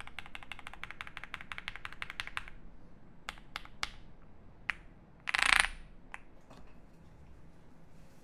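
Typing on a Jelly Epoch 75% mechanical keyboard with lubed Alpaca V2 linear switches, a polycarbonate plate and GMK keycaps: a fast, even run of keystrokes at about nine a second that stops about two seconds in, then a few separate key presses. Just after the middle comes a louder half-second burst of noise.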